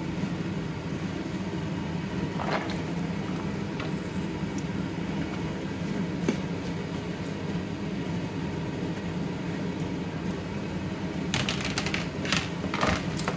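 A steady low mechanical hum, with a few short clattering sounds near the end.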